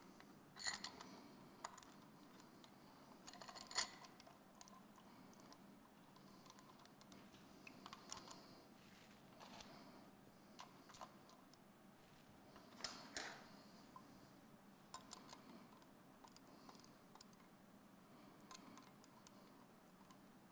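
Faint, irregular metallic clinks and taps of aluminium cam caps and their bolts being set by hand onto an engine's cylinder head, the loudest about 4 seconds in.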